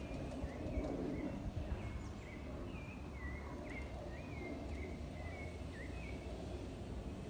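Small birds in a tree chirping: a quick run of short, repeated chirps that stops near the end, over a steady low rumble of city background noise.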